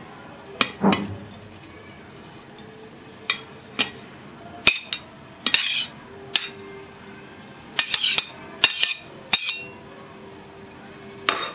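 Metal spoon clinking and scraping against ceramic plate and bowl while grated olives are scraped from one into the other: a dozen or so sharp, irregular clinks, busiest about eight to nine seconds in.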